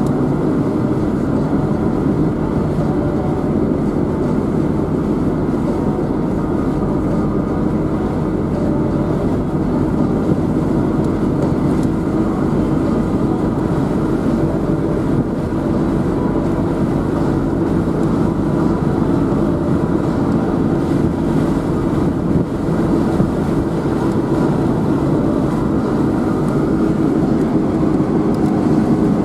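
Steady vehicle running noise, engine and road drone heard from a moving vehicle, with a constant low hum throughout.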